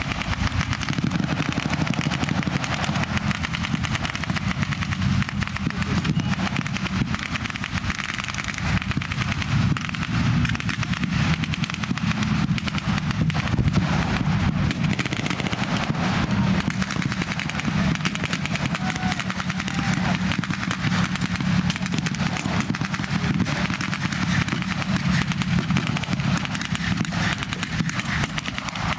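Rapid, nearly unbroken gunfire from World War II machine guns and rifles firing blanks, over the steady running of tank and vehicle engines.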